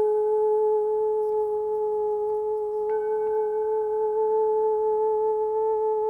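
A steady, sustained pure ringing tone with a second tone an octave above it, like a singing bowl or tuning fork held at one pitch. Fainter higher overtones join in about three seconds in.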